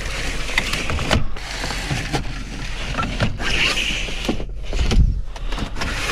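Pleated cab blinds being slid shut across a van's door window and windscreen: a sliding rustle broken by several clicks as the blinds move and latch.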